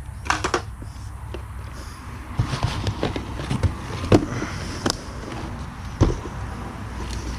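Rummaging through a box of junk: scattered knocks, clicks and rustling as items are handled and tossed aside, with a sharper knock about four seconds in and another about six seconds in, over a steady low hum.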